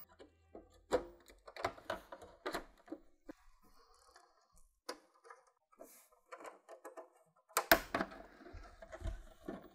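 Scattered small clicks and taps of a screwdriver and hands working on the plastic case of a Commodore Amiga 1000. Louder knocks near the end as the case is tipped up onto its side.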